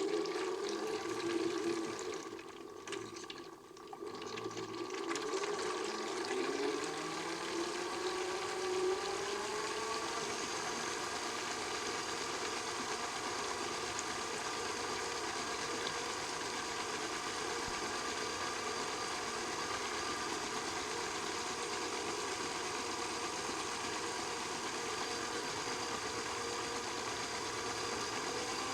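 Small electric motor of a modified Miele toy washing machine whirring as the drum turns, with water sloshing in the first few seconds. The whine rises in pitch between about five and ten seconds in as the motor speeds up, then holds steady.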